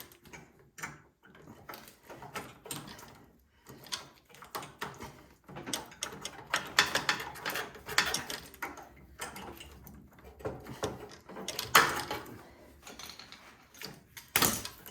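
Irregular clicks, scrapes and clatters of hand tools on small metal parts: the fuel line being worked off a snowblower carburetor, with a few louder knocks along the way.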